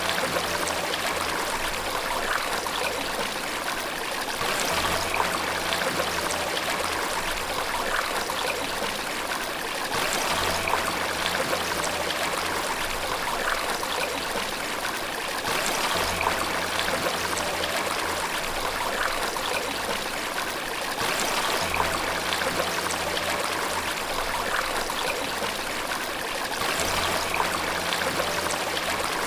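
Steady rush of running water, as from a waterfall or stream, with an even splashing hiss throughout.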